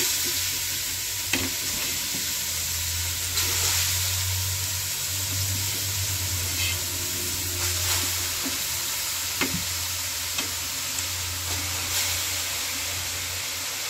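Grated bottle gourd sizzling as it drops into hot ghee in a large aluminium pot: a steady frying hiss, with a few faint clicks as handfuls land.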